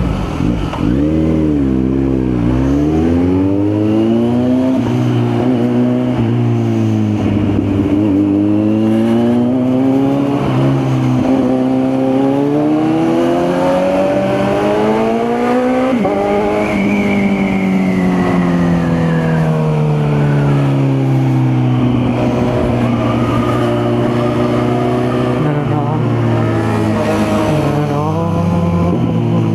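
Kawasaki Z900's inline-four engine under way, accelerating through the gears: the pitch climbs in stages with brief dips at each gear change, falls away as the bike slows about halfway through, then holds a fairly steady pitch.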